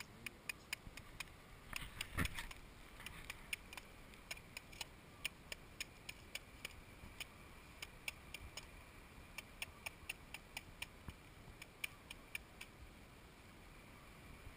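Chef's knife cutting open a sea urchin's shell: a run of sharp, irregular clicks and cracks, a few a second, with a louder knock about two seconds in.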